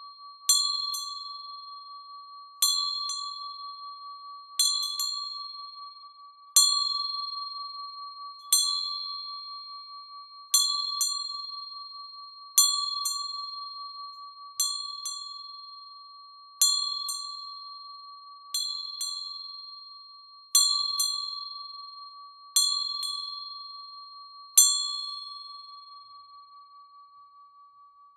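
A metal chime struck about every two seconds, often twice in quick succession, over a steady, pulsing ring that carries on between strikes. Near the end the strikes stop and the ring fades away.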